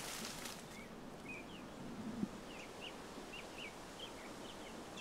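Outdoor ambience with small birds chirping in many short, quick calls, and a brief rustle at the start.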